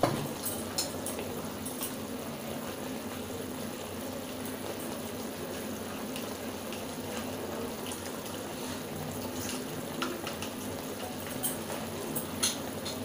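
Vegetable gravy simmering in a kadai on the stove, a steady bubbling hiss, with scattered light clicks of a spoon against a plastic bowl.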